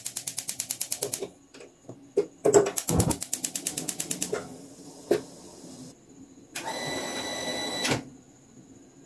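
Gas hob's electric igniter clicking rapidly, about a dozen clicks a second, in two runs as the burner knob is turned. Near the end comes a steady rushing sound lasting about a second and a half.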